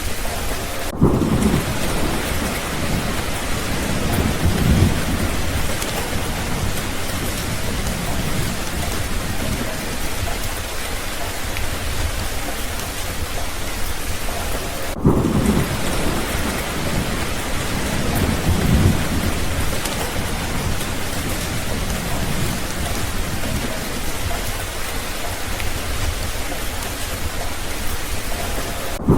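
Steady rain with low, rolling rumbles of thunder, a few seconds apart. The same stretch of rain and thunder repeats about every 14 seconds, each time starting just after a brief dropout.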